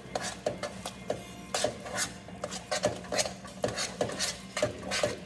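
A spoon stirring thick instant mashed potatoes in a pot, scraping against the pot in quick, irregular strokes, about two or three a second.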